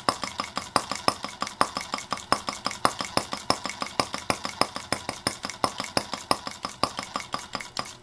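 Stirlingkit Benz R18 model single-cylinder gasoline engine running: a fast, even ticking clatter, several sharp clicks a second.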